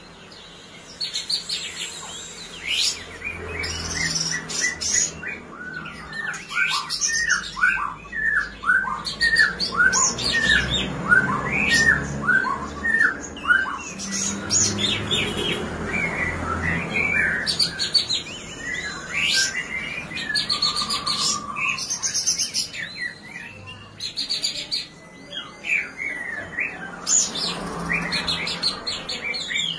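A caged songbird singing a long, varied song: quick runs of short down-slurred whistles mixed with sharp, high chirps.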